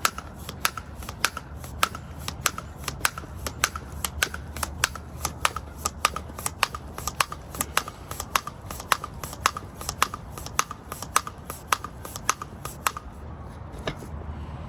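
Tire pump inflating a new inner tube in a 20 x 4 inch e-bike tire, making a rhythmic clicking of about three strokes a second that stops about a second before the end.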